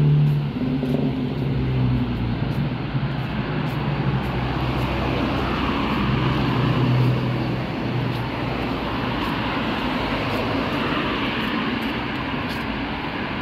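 Road traffic on a city street: cars driving past, with a low engine hum that is strongest in the first half and eases after about seven seconds.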